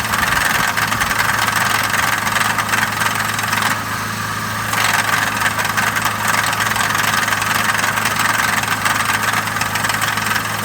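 Engine idling steadily with a fast, even ticking running through it, which the owner suspects may be engine knock. The sound dulls briefly about four seconds in.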